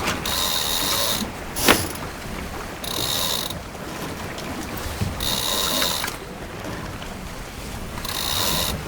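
Lightning sailboat's ratchet block buzzing as a line is pulled in through it, in four separate pulls of about a second each. A sharp knock comes about 1.7 seconds in.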